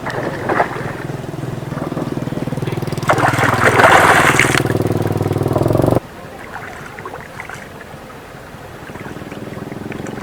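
A small engine running steadily, with a louder rushing noise over it in the middle. It drops away abruptly about six seconds in, leaving a quieter steady hum.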